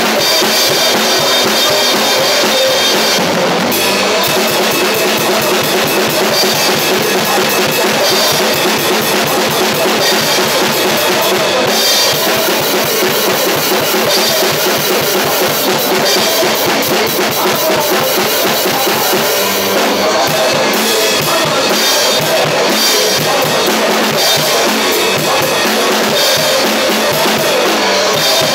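A Pearl drum kit played at full tilt in a rock beat, with close, continuous strikes of bass drum, snare and cymbals.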